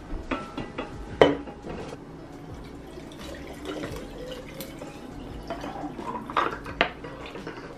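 Water poured from a plastic gallon jug into a stainless steel Hydro Flask bottle, splashing and trickling inside. There is a sharp knock about a second in and a few clinks near the end.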